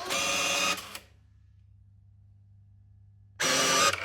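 UBA bill validator's transport motor whirring as it draws in a banknote for about a second, then stopping. The motor starts again near the end as the note is moved on.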